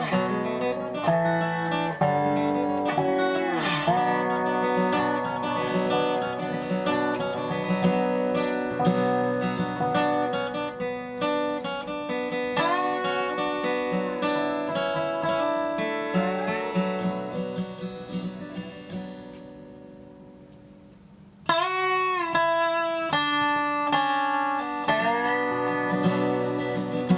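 Instrumental dobro music: a resonator guitar played with sliding notes over a strummed guitar. The piece fades out toward about 20 seconds in, and a new phrase starts abruptly about a second later.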